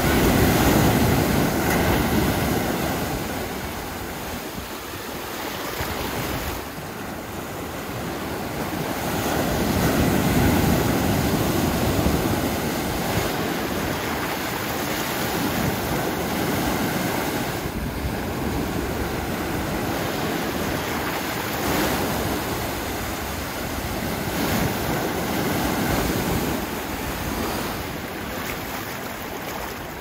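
Gentle ocean waves washing up over a sandy beach and swirling back, a continuous rush that swells loudest near the start and again about ten seconds in.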